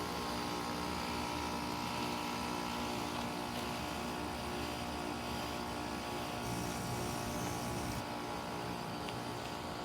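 Bryant Legacy Line heat pump outdoor unit running steadily during its defrost cycle: a constant mechanical hum with several steady tones.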